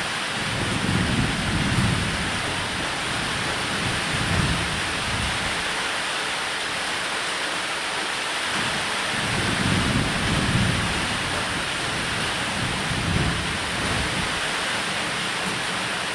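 Steady heavy rain hissing, with thunder rumbling low in several rolls. The strongest rolls come about a second in and again around ten seconds in.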